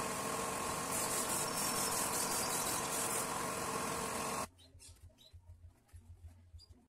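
A steady mechanical hum with a hiss that cuts off suddenly about four and a half seconds in, leaving only faint low bumps.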